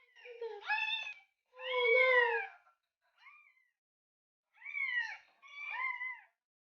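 A cat meowing five times, each call with a clear pitch and several falling at the end; the third call is short and faint.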